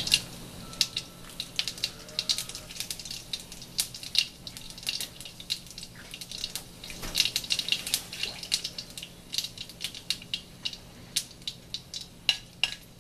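Mustard seeds popping in hot oil during a South Indian tempering with urad dal and dried red chillies: sharp, irregular crackles several times a second over a light sizzle.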